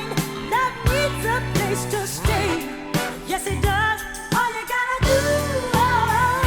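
Early-1980s funk/soul song playing: a lead vocal sung with vibrato over electric bass, drum kit and keyboards, with a steady beat.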